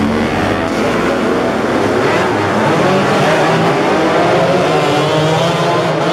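A pack of racing motorcycles pulling hard through a corner, several small engines running high at once with their pitches wavering as the riders work the throttles.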